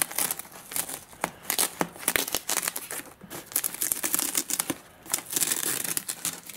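Masking tape being peeled off in short tugs, with the foil-faced padded wrap it holds crackling and crinkling: a run of sharp crackles and ripping noises.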